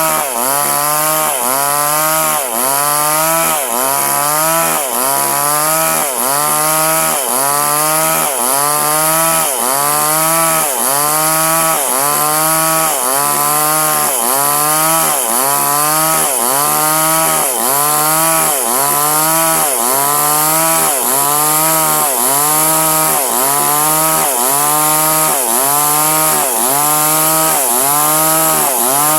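Two-stroke chainsaw cutting durian wood, held at high revs, its engine pitch dipping and recovering about once a second as the bar is worked through the timber.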